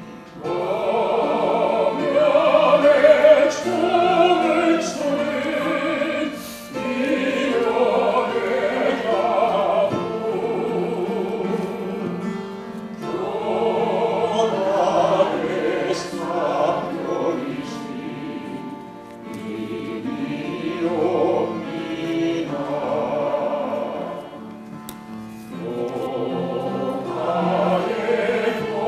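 A male singer leads a congregation in a slow Won Buddhist hymn (seongga), the voices singing together in long phrases with brief pauses for breath between them.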